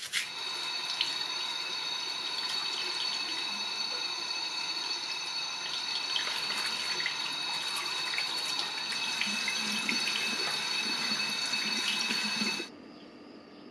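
Tap water running steadily into a sink and over plastic drill-housing parts held under the stream, with small clicks as the parts are handled and scrubbed. The water sound stops suddenly about a second before the end.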